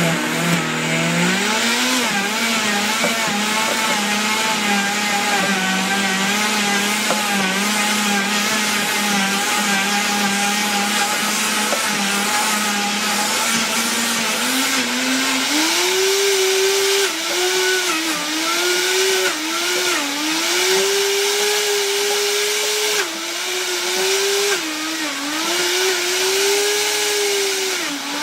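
Oster Versa high-performance blender motor running hard, grinding raw hulled sunflower seeds into sunflower butter. The motor pitch is steady for the first half, climbs about halfway through, and then keeps dipping and recovering.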